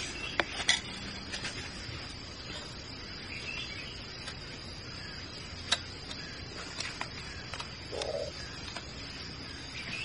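Steady high-pitched insect chirring, with scattered sharp clicks and taps from gloved hands working wire around bamboo poles; the loudest clicks come twice just under a second in and once about six seconds in.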